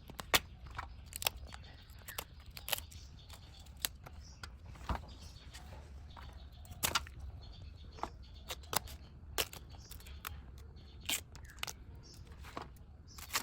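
Banana blossom being peeled by hand: bracts and floret clusters snapped and torn off one after another. The sound is a string of short, sharp, irregular snaps with quiet between them.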